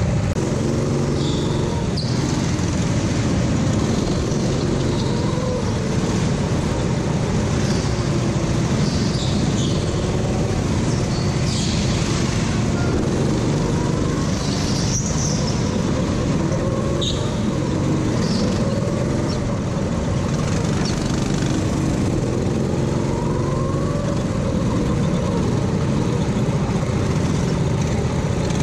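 Go-kart engines running steadily, their pitch rising now and then, with a few short high squeaks scattered through.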